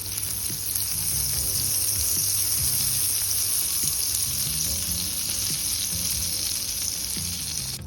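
Butter sizzling as it melts in a hot pan: a steady, even hiss that cuts off suddenly near the end. Faint background music runs underneath.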